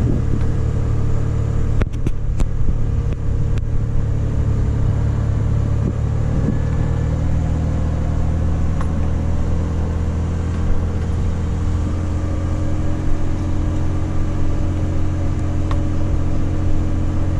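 Third-generation Toyota 4Runner's engine running steadily under load as the truck climbs a steep grass slope, a steady low drone with a slight change in pitch about six seconds in. A few sharp knocks come about two seconds in.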